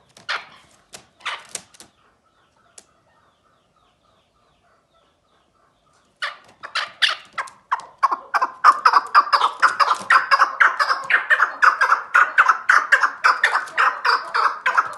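Chukar partridge calling: a few calls, then a few quiet seconds, then from about six seconds in a fast run of repeated calls, several a second, that keeps on to the end.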